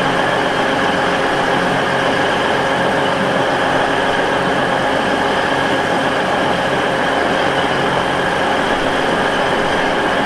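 Diesel train engine running steadily, an even drone with constant tones and no change in level.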